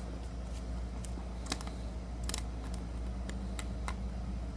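Trading cards being handled and flicked through: a few scattered light clicks and rustles of card stock, over a steady low hum.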